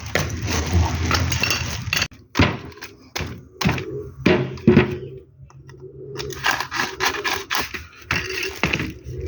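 A series of sharp knocks and scraping sounds, with the strikes bunched about two to five seconds in.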